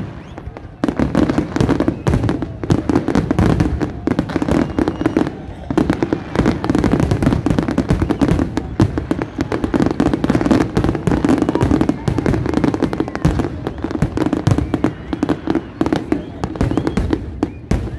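Fireworks display going off in a dense, unbroken barrage of bangs and crackle, with voices from a crowd beneath.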